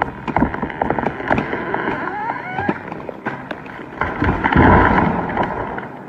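Large conifer being felled: sharp cracks and snaps as it breaks over its cut, then crashing down through branches onto the ground about four to five seconds in.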